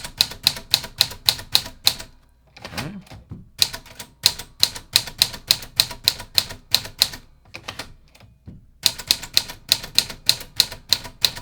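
Smith Corona Sterling manual typewriter being typed on: quick type-bar strikes, about five a second, in three runs with two short pauses between them.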